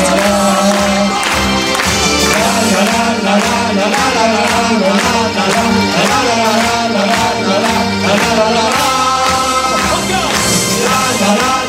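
Live music with singing over a steady beat, with hands clapping along in time.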